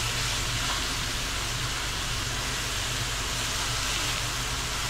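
Crab with ginger and scallions stir-frying in a hot wok: a steady sizzling hiss with a low hum underneath.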